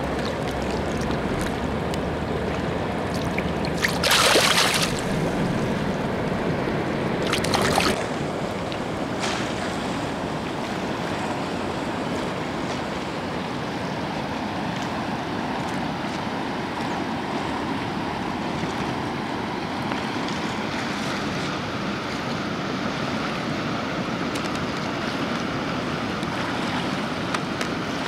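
Steady rush of water pouring through a river dam, with two short, louder whooshes about four and seven and a half seconds in.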